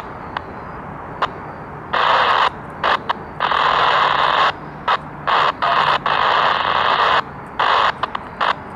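Bursts of static from a railroad radio scanner, hissing on and cutting off abruptly again and again, each from a fraction of a second to over a second long.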